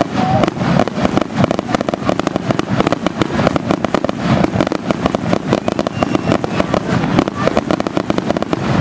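Fireworks finale: a rapid, unbroken barrage of bangs and crackles as many shells are fired in quick succession.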